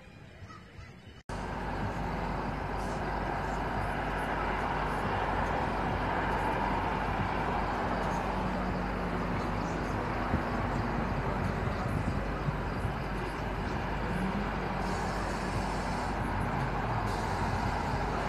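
Steady background rumble of distant road traffic with a low hum, cutting in abruptly about a second in.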